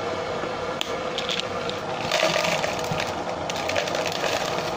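Dried omena (tiny dried sardines) rattling and rustling against a plastic jar as they are poured into a plastic bowl, with scattered clicks and a louder spell of rustling from about two seconds in. Under it runs the steady sound of an electric kettle heating water.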